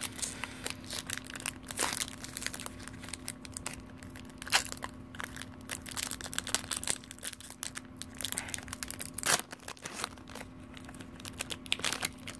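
Foil Pokémon card pack wrapper being crinkled and torn open by hand: irregular sharp crackles of the foil, with the loudest about four and a half and nine seconds in.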